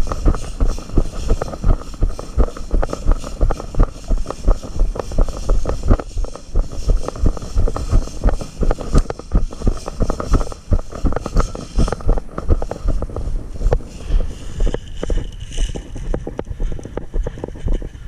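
Footsteps and gear jostling against a body-worn camera as the player moves: rhythmic low thumps about twice a second with wind buffeting the microphone, easing off about fourteen seconds in.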